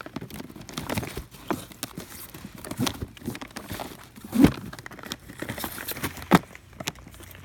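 Cardboard firework boxes being handled and set down: rustling and scraping with irregular knocks, the two loudest thumps coming about four and a half and six and a half seconds in.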